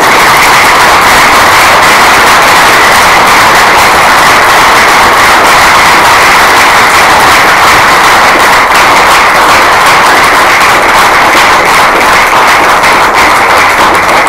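An audience applauding loudly and steadily: the dense patter of many hands clapping.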